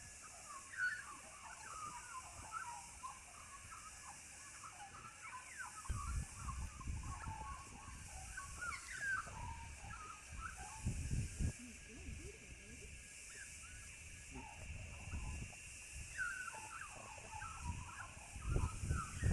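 Many birds chattering, with short chirpy calls throughout, over a steady high background hiss. Gusts of wind buffet the microphone from about six seconds in and again near the end.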